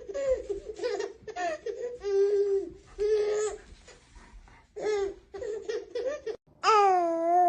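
A baby laughing in a run of short, high-pitched bursts, then one longer squeal near the end.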